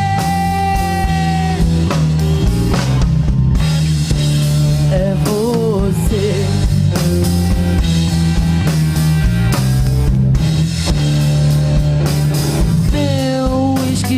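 Live rock band playing an instrumental passage: an electric lead guitar holds and bends notes, with vibrato near the end, over bass and drum kit.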